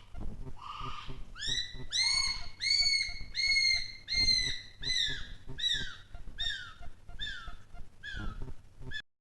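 A pair of North Island brown kiwi duetting. The female gives a few guttural rasps, then the male takes over with a series of about fifteen shrill whistles, roughly two a second. Each whistle rises then falls, and they become shorter and drop in pitch toward the end before cutting off.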